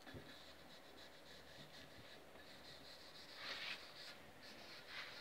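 Faint rubbing of a cloth wiped over the painted wooden body of a bass guitar, with a couple of slightly louder swishes about three and a half and five seconds in.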